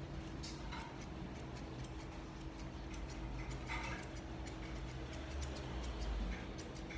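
Grooming scissors snipping through a dog's fur in quick, irregular cuts, heard as a run of light clicks.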